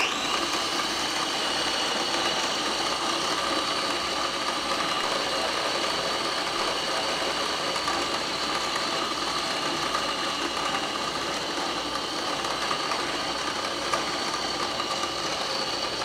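Electric blender motor switching on abruptly and running steadily with a high whine, blending a banana and peanut-butter mixture with sliced almonds.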